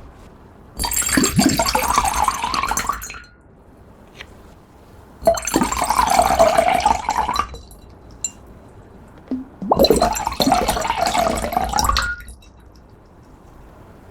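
Liquid being poured into a container three times, each pour lasting about two and a half seconds, with a gurgling fill sound that drops in pitch as it goes.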